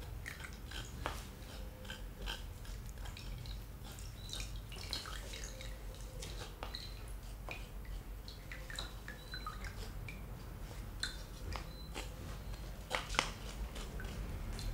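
Wooden spatula pressing and scraping lemon pulp against a stainless-steel mesh sieve, with wet squishing and small irregular clicks, while strained lemon juice drips and trickles into a bowl below.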